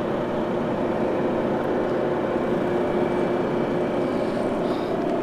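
KAMAZ 54901 truck's diesel engine idling steadily and evenly, a smooth, quiet run with a constant hum.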